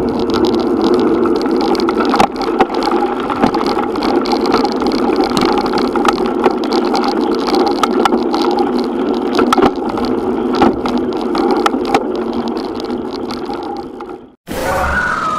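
Riding noise picked up by an action camera clamped to bicycle handlebars: a steady rumble of wind and road vibration with frequent knocks and rattles as the bike goes over bumps. It cuts off suddenly near the end, and a different sound with a rising tone begins.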